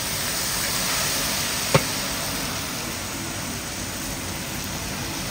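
Chicken pieces sizzling steadily in a large iron wok, with one sharp metallic knock about two seconds in.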